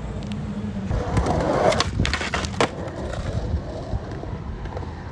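Skateboard wheels rolling over concrete with a steady rumble, swelling about a second in, then three sharp clacks of the board hitting the ground about two seconds in.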